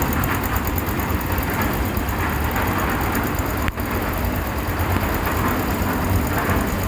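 Concrete mixer machine's engine running steadily, a continuous low mechanical drone, with a brief dip about halfway through.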